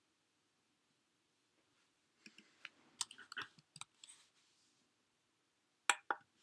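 Irregular light clicks and taps: a loose run of them about two seconds in, then two sharper clicks near the end.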